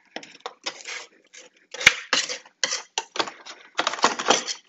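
Putty knife scraping caked grass clippings off the underside of a Honda HRR216 lawnmower deck in short, irregular strokes, with one sharp click about two seconds in.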